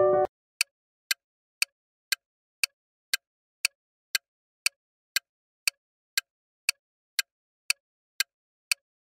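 Countdown timer ticking: short sharp clicks, about two a second, with silence between. A held keyboard chord cuts off just at the start.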